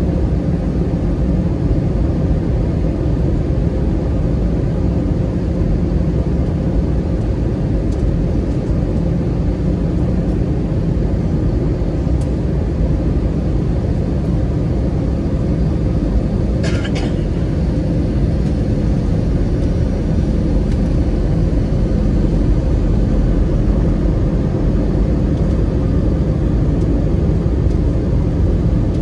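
Jet airliner cabin noise heard from a window seat beside the wing during descent: the steady roar of the turbofan engines and rushing air, with a faint steady hum underneath.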